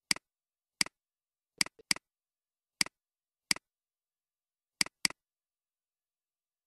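Computer mouse button clicking: about eight sharp single clicks spread over five seconds, some in quick pairs.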